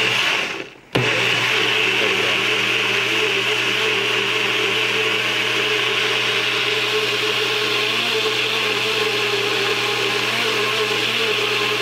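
Nutribullet personal blender's motor running with its cup pressed down, chopping frozen fruit and spinach in water into a smoothie. It cuts out briefly just under a second in, then starts again and runs at a steady pitch.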